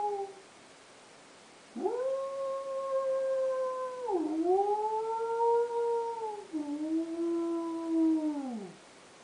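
A person imitating a wolf howl with the voice: the tail of one howl fades out at the start, then about two seconds in a long howl swoops up, holds, dips in pitch twice and slides down at the end.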